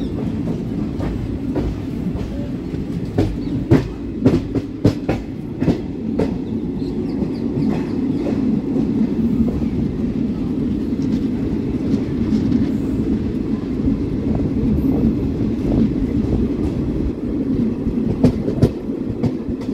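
Train running on the track: a steady rumble with a quick run of sharp wheel clacks over rail joints about three to six seconds in, and two more near the end.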